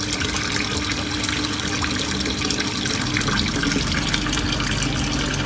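Water splashing steadily into a turtle tub from a submersible pump's return pipe, with a low steady hum underneath.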